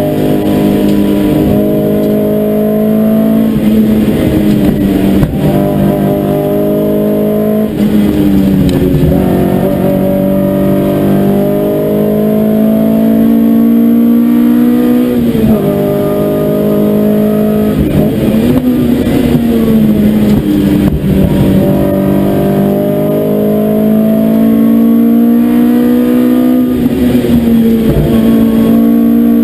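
BMW Mini One's engine driven hard, heard from inside the cabin. Its pitch climbs through the revs and drops sharply at each shift or lift, several times over.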